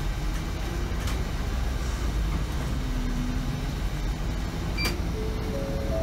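Inside a city bus on the move: the engine runs with a steady low hum, with a couple of sharp rattles. Near the end a whine from the drivetrain steps up in pitch.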